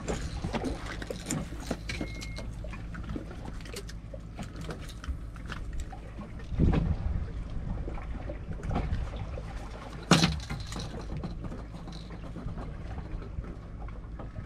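A boat's motor running with a steady low hum, with water noise around it and two sharp knocks partway through.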